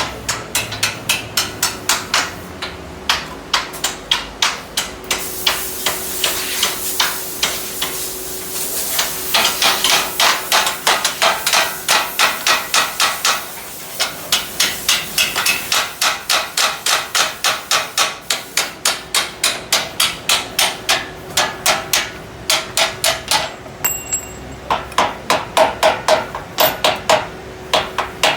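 Rapid hammering on a truck bed's steel side gate, about three to four blows a second, with a couple of short pauses.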